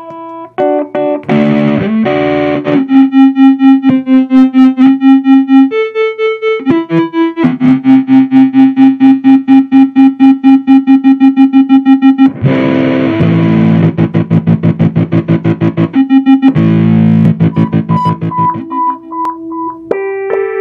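Howler analog optical tremolo pedal feeding its effects loop back on itself: electronic feedback tones that hold a pitch for a second or so, then jump to another. The tremolo chops them into steady pulses several times a second.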